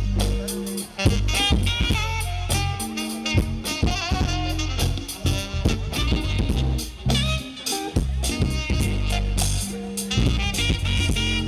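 Live band playing an instrumental passage through a stage PA: bass and drum kit under a melodic lead line with bending, wavering notes.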